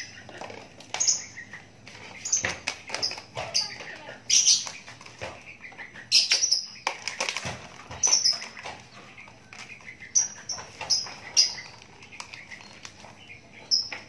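Young Javan myna (jalak kebo) in a wire cage, giving a dozen or so short, high, slightly falling calls at uneven intervals, mixed with bursts of wing flapping.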